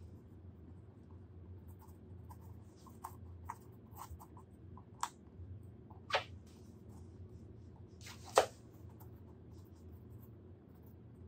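A paintbrush scrubbing and dabbing paint over a textured canvas of rice paper and embedded straw: a run of short scratchy strokes, with a few sharper ones past the middle, over a low steady hum.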